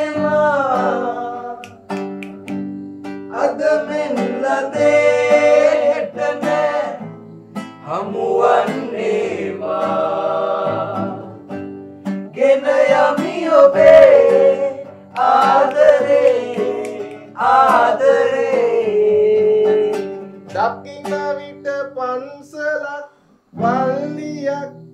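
Men singing a Sinhala song in long held phrases over instrumental accompaniment.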